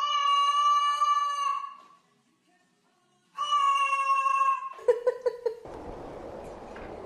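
White cockatoo screaming a long, drawn-out "aaaa" twice, each call held about a second and a half and separated by a short silence, then a few short choppy calls. After that only a steady low hiss of room noise.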